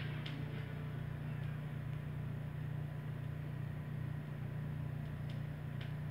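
Stylus of a Technics SL-3200 direct-drive turntable riding the record's silent run-out groove as the music dies away at the very start: a steady low hum with a few faint surface clicks.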